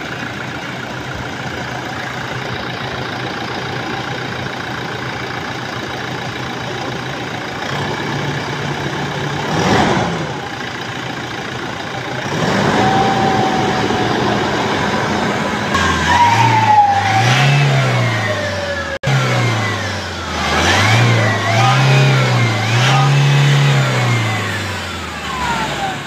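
Toyota Hilux Revo turbodiesel engine idling, then revved up and down several times in the second half, with a whistle that rises and falls with the revs. The whistle comes from the turbocharger: its compressor wheel has a damaged fin, hit by a piece of the air filter that was sucked in.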